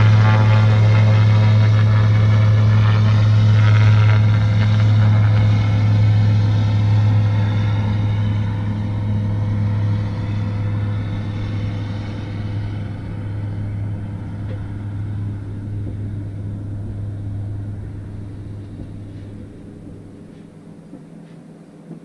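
Light propeller airplane flying low past, its engine and propeller drone loud at first and dropping slightly in pitch, then fading steadily away over about twenty seconds.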